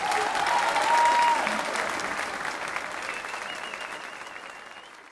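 Audience applauding at the end of a concert band piece, with a couple of whistles over the clapping; the applause is loudest about a second in and slowly fades.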